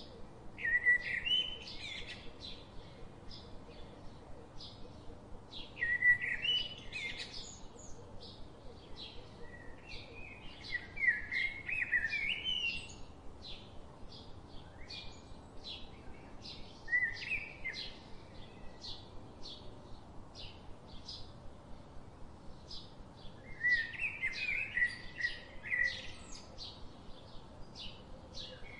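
Songbirds singing: several loud warbled song phrases a few seconds apart over a steady series of short high chirps, about two a second.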